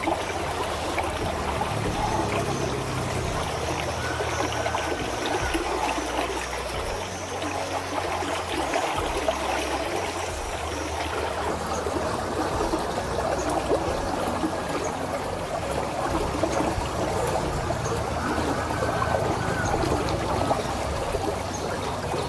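Water running and trickling steadily in a concrete irrigation channel, spilling down the face of a small weir.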